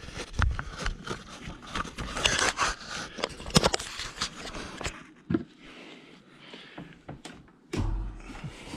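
Rustling, scraping and knocking as someone moves about and handles things, busiest in the first five seconds, then quieter with a few scattered knocks.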